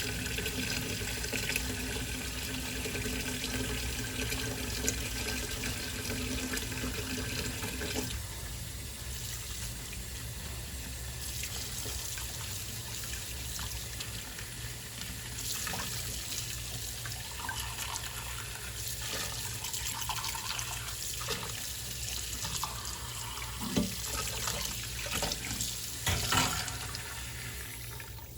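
Water running from a tap into a kitchen sink while dishes are washed by hand. About eight seconds in, the flow changes and becomes softer, and a few knocks of dishes come near the end.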